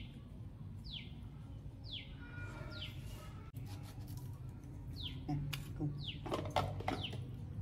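A small bird chirping repeatedly, short notes that each drop steeply in pitch, roughly one a second with a gap in the middle, and a few sharp clicks near the end.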